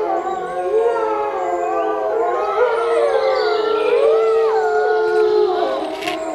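A pack of wolves howling together in chorus: several overlapping howls, long held notes that rise and fall in pitch independently of one another.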